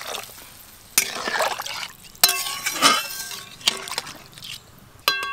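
A metal ladle stirring watery cauliflower curry in a thin aluminium kadai: sloshing and scraping, broken by several sharp clinks against the pan that each ring briefly. Near the end one clink rings on longer.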